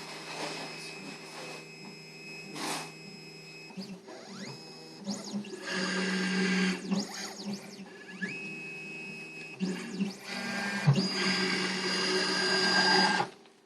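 3D Pro Xtreme computerized key machine running its jaw 3 calibration, its motors driving the stylus carriage to touch off at the key seat, then to the left, then to the front. A whining motor sound comes in several runs, sliding up and down in pitch as each move starts and stops, and cuts off abruptly near the end, after a short knock early on.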